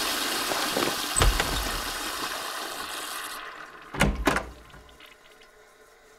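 Toilet flushing, the rush of water dying away after about three seconds, with a low thump about a second in. About four seconds in come two quick heavy thuds of a door shutting.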